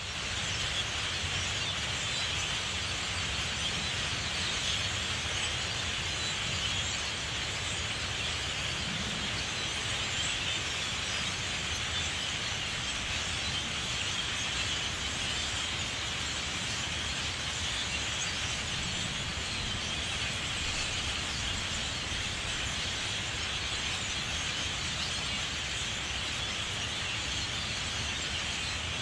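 A dense chorus of many birds calling at once, blending into a steady high-pitched din with a low background rumble beneath it.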